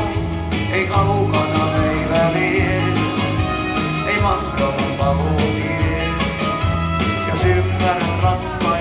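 Rock-and-roll style music with a steady drum beat and a repeating bass line.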